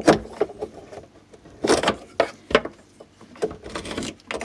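A series of short knocks, taps and brief scrapes as a level and pencil are handled against a piece of drywall while a cut line is marked.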